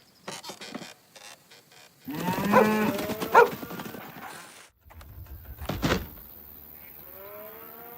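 Cartoon cow mooing: a bending moo about two seconds in and a rising one near the end, with short clicks and knocks between them.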